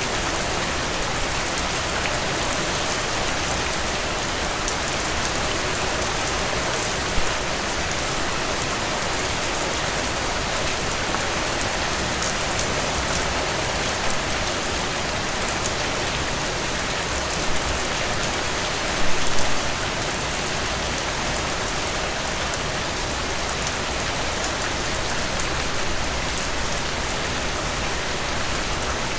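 Steady rainfall: an even hiss of many drops, with a few brief louder taps, the loudest a short cluster about two-thirds of the way through.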